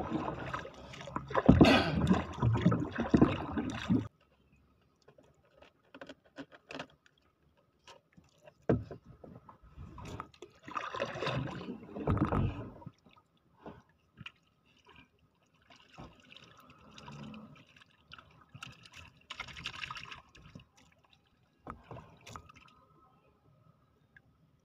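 Paddle stirring the sea beside a small wooden boat for the first four seconds, then cutting off abruptly; after that, quieter water splashing and lapping around the hull with scattered light knocks and clicks, and a louder splash a little before the middle.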